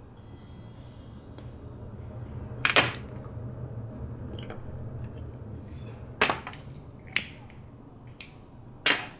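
A high, steady whistling tone starts suddenly near the beginning and fades away over a few seconds, followed by a handful of sharp clicks about a second apart from a pocket lighter being struck.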